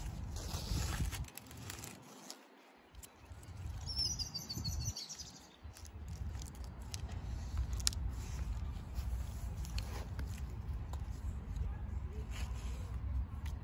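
Outdoor ambience with a low wind rumble on the microphone that drops away for a few seconds near the start. A bird chirps a quick run of short high notes about four seconds in, and a hammock tree strap of nylon webbing and its plastic buckle give faint rustles and clicks as the strap is wrapped around the trunk.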